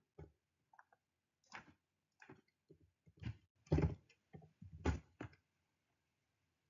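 Irregular clicks of a computer keyboard and mouse during typing, the loudest a little past halfway.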